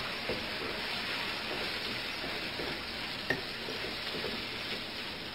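Minced meat (keema) frying with tomatoes and spices in a nonstick wok, a steady sizzle as it is stirred and mixed with a wooden spatula. The spatula taps lightly on the pan a couple of times.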